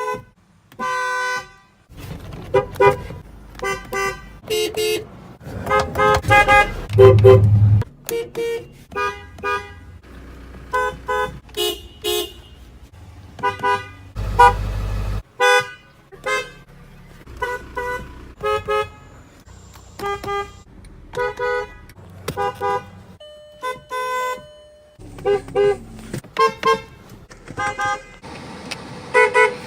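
Car horns from many different cars honked one after another in quick succession. Most are brief single or double toots of a fraction of a second, each with its own pitch.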